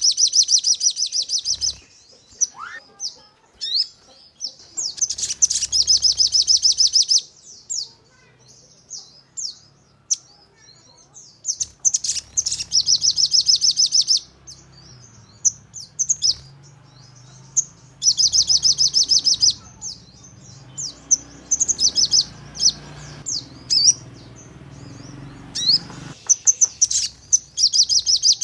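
Sogon songbird singing in rapid-fire 'nembak' bursts: five high-pitched trills of about two seconds each, with short sharp chirps in the gaps between them.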